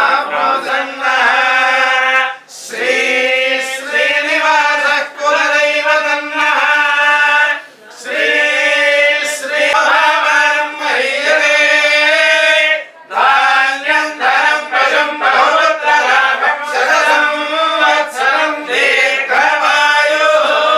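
Several male voices chanting Sanskrit puja mantras together in a sing-song recitation. The notes are held and the phrases are broken by short pauses for breath about every five seconds.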